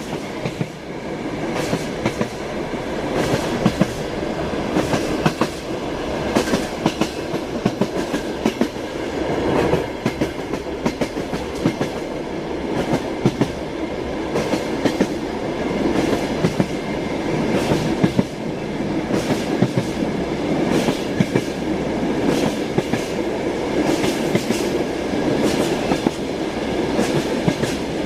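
Train wheels clattering over rail joints: a continuous rumble with sharp clacks, often in quick pairs, repeating through the run. The sound swells up in the first second.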